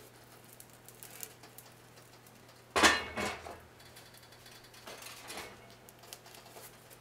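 Heavy cast iron lid set down on a cast iron skillet: a sharp clank about three seconds in, with a second knock right after. Fainter knocks and scrapes of the pan follow around five seconds in.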